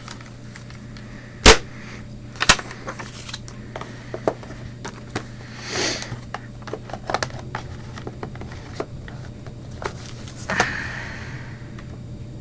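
Plastic DVD slim cases and their box being handled: a series of sharp clicks and knocks, the loudest about a second and a half in, with brief rustles near six and eleven seconds, over a steady low hum.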